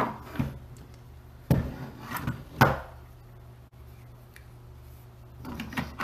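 Knocks and clunks of a beetleweight combat robot being handled and taken apart on a wooden desk: a few sharp knocks in the first three seconds, the loudest near the middle, then a lull and more clatter near the end.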